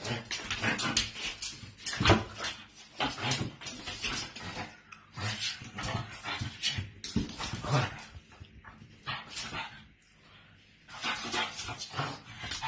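Pug puppy barking and whimpering in short, irregular bursts, with a lull about two thirds of the way through.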